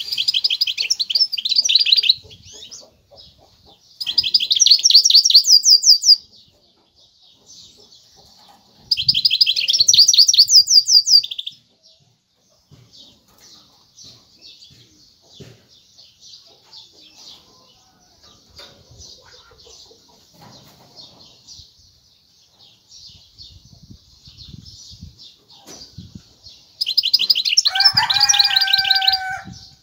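Caged goldfinch mule (goldfinch × canary hybrid) singing: four loud bursts of rapid, twittering song, each about two seconds long, with soft, continuous twittering between them. The last burst, near the end, carries a lower, drawn-out note under the twitter.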